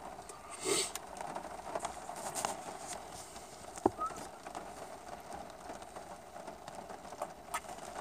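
Chewing chicken nuggets, with soft irregular mouth clicks and smacks over a steady background hiss.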